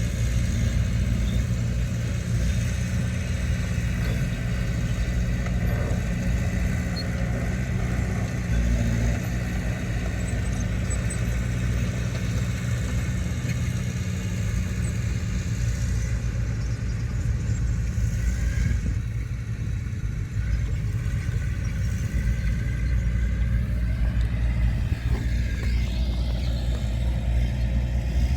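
Diesel engine of heavy earthmoving machinery running steadily with a deep low drone, with a brief rising whine near the end.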